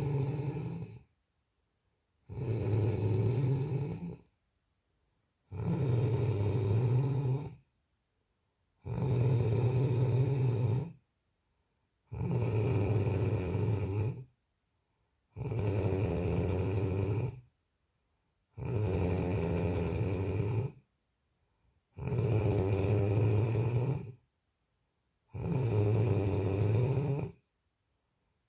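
Snoring: a slow, regular run of rough, low snores, each lasting about two seconds and coming about every three seconds, with complete silence between them.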